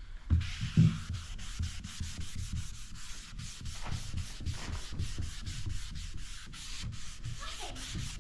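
Sandpaper rubbed by hand over a wooden surface in quick, regular back-and-forth strokes. Two low knocks come about half a second in.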